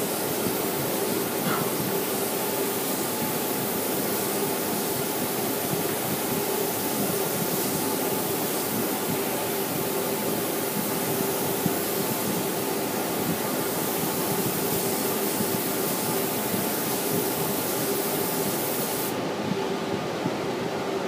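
Compressed-air spray gun hissing steadily as it sprays stain, with a steady hum underneath; the hiss cuts off about nineteen seconds in, leaving the hum.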